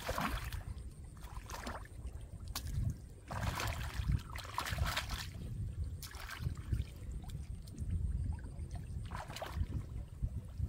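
Muddy shallow water splashing and sloshing in irregular bursts as a person wades and gropes through a flooded rice-paddy mud by hand.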